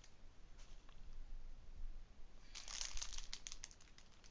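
Plastic packaging crinkling as it is handled, with a burst of crackles about two and a half seconds in.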